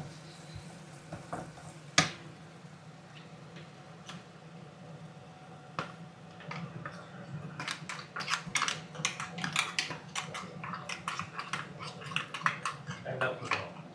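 Kitchen utensils clinking and scraping: one sharp knock about two seconds in, then a fast run of clicks and scrapes through the second half, over a faint steady low hum.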